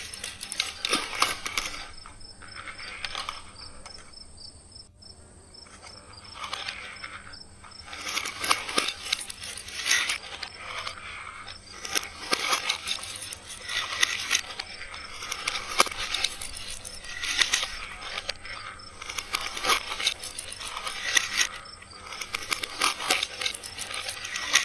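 Glass marbles rolling and clattering along multicolour plastic rail tracks, a steady stream of small clicks and rattles. There is a quieter lull a few seconds in, then busy clatter again.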